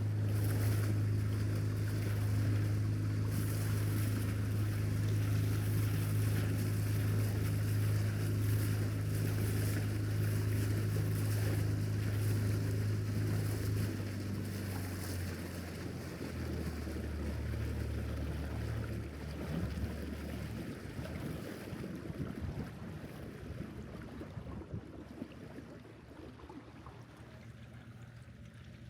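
Skiff's outboard motor running steadily under way, with water and wind noise. About fourteen seconds in the engine note drops lower as it throttles back, then fades out, leaving the hiss of water and wind.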